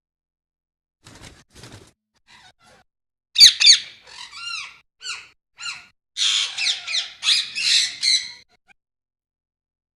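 Pet parrots squawking: a run of loud, harsh calls starting about three seconds in, after a couple of faint knocks.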